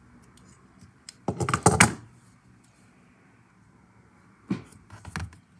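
Handling noise of a piccolo trumpet and its measuring tools in the hands: a quick cluster of loud clicks and knocks about a second and a half in, then a few softer clicks near the end.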